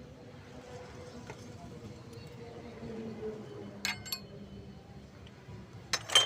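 Metal clinks over a low steady hum: two sharp clicks about four seconds in, then a louder cluster of ringing clinks near the end.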